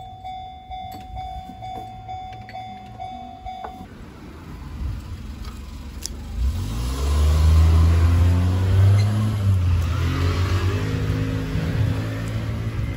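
A vehicle passing close by: a low engine or motor sound swells from about halfway through, its pitch rising, and stays loud to the end. Some steady tones at the start stop abruptly.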